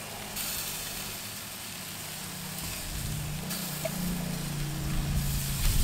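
Chicken leg quarters sizzling on the hot grate of a charcoal drum smoker as sauce is mopped on, a steady hiss. A low steady hum underneath grows louder in the second half.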